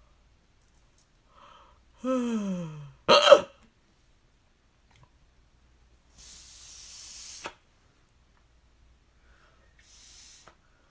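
A man hiccuping: a short voiced sound sliding down in pitch, then a sharp, loud hiccup about three seconds in. Later comes a longer breathy hiss and a fainter one near the end.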